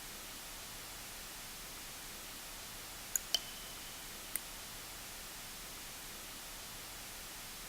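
Steady white-noise hiss with water drops falling into it: two drips close together about three seconds in and a fainter one about a second later, each a short pitched drop.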